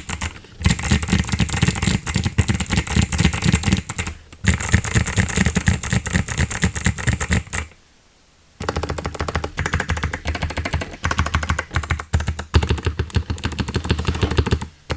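Fast typing on a GMK67 mechanical keyboard with clicky Kailh Box White switches and DSA keycaps: a dense run of crisp key clicks, stopping for about a second a little past the middle before carrying on.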